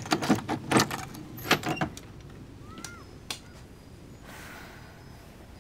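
Keys jangling and clicking at a door lock for about two seconds, then a single latch click a little over three seconds in as the door is opened.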